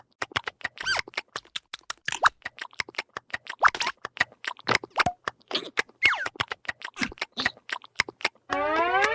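Cartoon sound effects: a rapid run of sharp clicks and taps, about five a second, mixed with short squeaky chirps. Near the end comes a loud rising, voice-like whoop.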